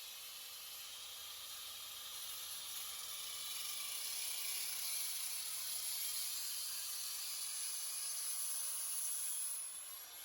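Angle grinder fitted with a masonry disc cutting metal: a steady high hiss that builds over the first few seconds and eases off near the end.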